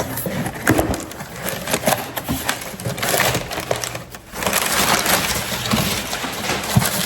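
An Amazon package being opened and its contents rummaged by hand: dense crackling and rustling of packaging with sharp snaps throughout.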